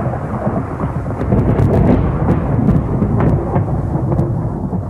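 Thunderstorm: rain falling with low rolling thunder, swelling about two seconds in.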